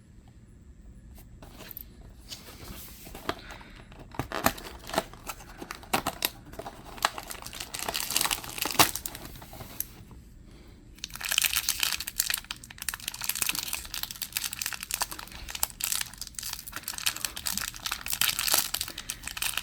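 Toy packaging being torn open and handled: tearing and crinkling with many sharp clicks and rustles. About eleven seconds in it turns into a louder, denser run of crinkling.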